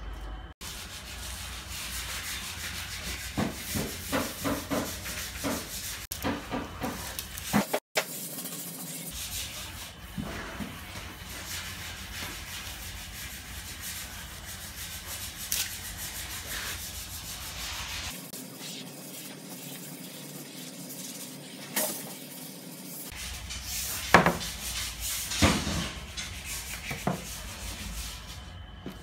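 A cloth pad rubbed firmly by hand over an HPL laminate sheet laid on plywood, in rhythmic back-and-forth strokes, bedding the laminate onto the board. A few sharp knocks come near the end.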